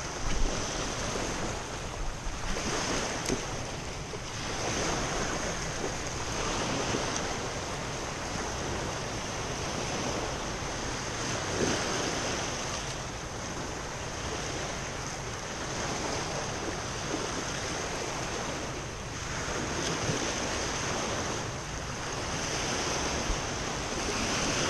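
Small waves washing up over a pebble shore and draining back: a steady rush of surf that swells and eases every few seconds.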